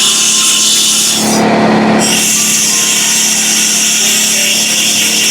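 Compressed air hissing hard from an air blow gun into the engine block's cylinder-head bolt holes, blowing residual coolant out. About a second in, the hiss drops for under a second to a lower rushing sound, then returns. A steady low hum runs underneath.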